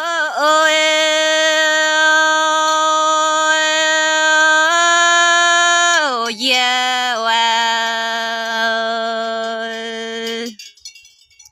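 A singer's voice in a Red Dao (Iu Mien) folk song, holding one long sung note, then gliding down about six seconds in to a lower held note that breaks off about ten and a half seconds in.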